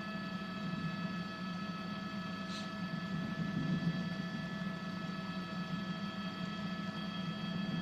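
Steady drone of a news helicopter heard from inside its cabin: a low hum with several steady high whining tones from the engine and rotor.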